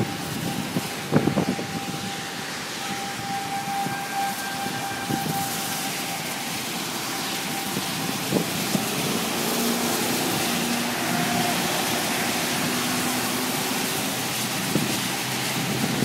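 Wind blowing across the microphone outdoors, with a faint steady tone held in the background and a couple of low thumps.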